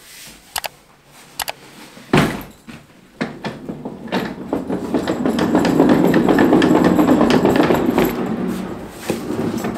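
A few sharp knocks, then a wheeled suitcase rolling over a wooden hallway floor. Its rumble grows louder as it comes closer and eases off near the end.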